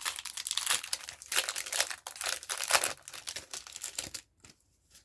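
Foil wrapper of a Pokémon booster pack crinkling and tearing as it is handled and torn open: a dense run of crackles that stops about four seconds in.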